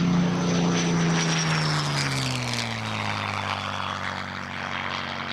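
Supermarine Spitfire Mk IX's Rolls-Royce Merlin V12 engine flying past, its pitch falling steadily as the aircraft passes and draws away.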